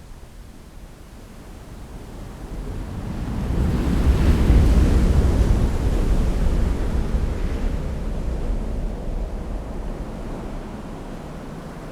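A deep, rushing noise swells up over a few seconds, peaks about four to six seconds in, then slowly fades away.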